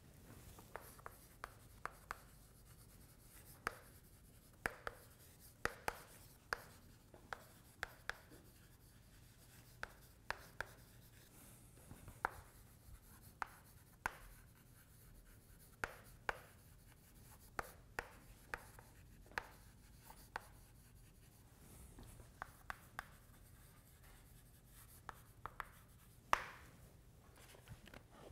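Chalk writing on a blackboard: a string of short, irregular taps and scrapes as letters are formed, with a louder, longer stroke near the end.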